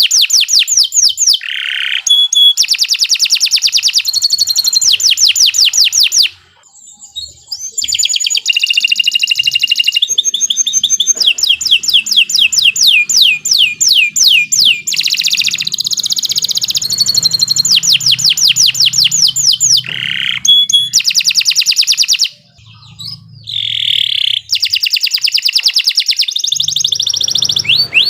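Domestic canary singing a long, loud song made of fast trills and runs of rapidly repeated high notes. It breaks off briefly twice, about six seconds in and again a little past twenty seconds.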